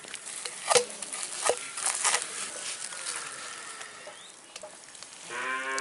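A few sharp clicks and taps, the loudest about a second in. Near the end a cow starts a long, low moo.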